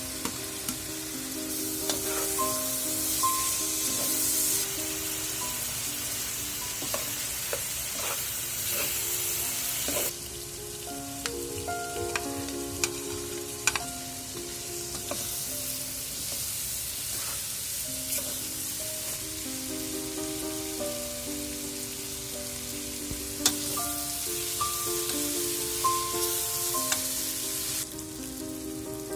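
Food frying and sizzling in oil in a pan while being stirred, with sharp clicks of a utensil against the pan. The sizzle drops back about ten seconds in, returns, and drops again near the end. Background music plays throughout.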